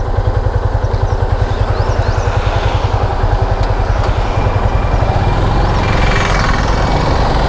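Motorcycle engine idling with an even low beat of about eight to nine pulses a second, evening out into a steadier sound about halfway through.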